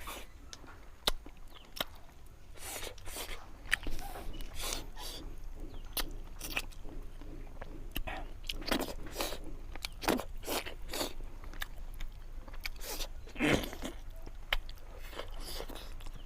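Close-miked eating: crunchy bites and chewing, with irregular sharp crunches and wet mouth sounds.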